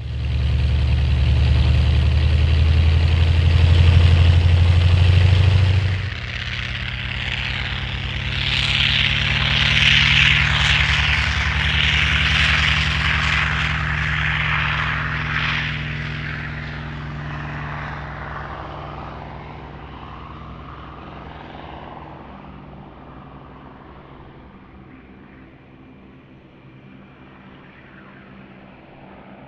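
Radio-controlled Pitts Model 12 biplane with an onboard radial-engine sound system, running loud and steady for about six seconds, then dropping suddenly. It swells again with a rushing propeller hiss as it passes and slowly fades away.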